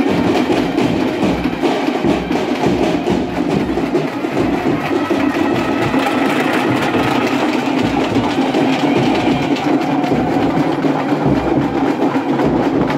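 Loud, fast festival drumming: dense, even beats with no pauses.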